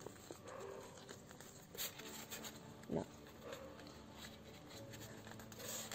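Quiet room tone with faint rustling and creasing of a sheet of origami paper being folded by hand, and two short, slightly louder paper sounds about two and three seconds in.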